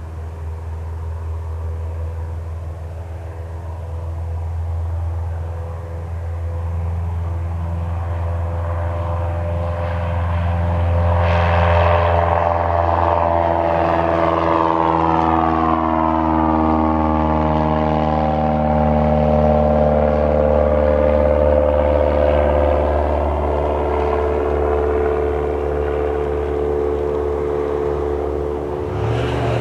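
Cessna 172R Skyhawk's four-cylinder Lycoming engine and propeller at full takeoff power during the takeoff roll and climb-out. The sound grows louder as the plane climbs past. Its pitch sweeps down as it goes by about twelve seconds in, then holds steady and a little quieter as it climbs away.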